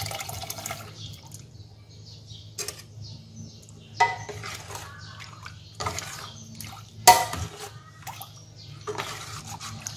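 Milk poured from a can into a metal pot of liquid, then a metal ladle stirring the liquid, with scrapes and clinks against the pot about every second or two, the loudest about seven seconds in. A steady low hum runs underneath.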